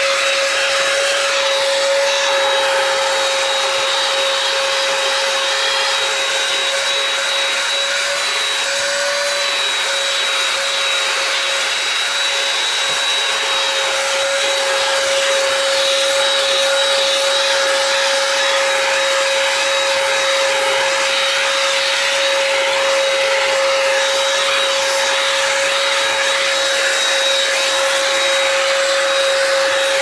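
A 780-watt Black & Decker VH780 handheld vacuum cleaner running steadily, a high motor whine over a rush of air, as its crevice nozzle works over car carpet.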